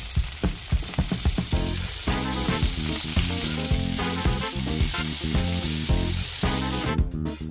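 Top blade beef steaks sizzling as they sear in hot oil and butter in a frying pan, with background music playing underneath. The sizzle cuts off near the end.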